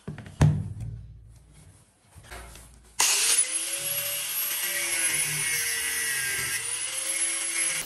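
A single knock about half a second in, then from about three seconds in a Prescott angle grinder with an abrasive disc runs on the wooden board, its whine sagging and recovering in pitch as the disc is pressed into the wood.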